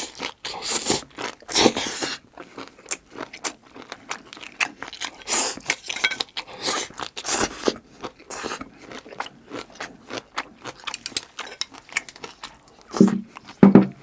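Close-up mouth sounds of someone chewing a mouthful of stir-fried seaweed stems, with wet clicks, smacks and crunching throughout. Two louder, deeper mouth sounds come near the end.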